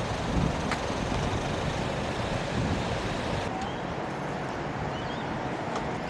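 Steady traffic noise: an even, low hum of road vehicles.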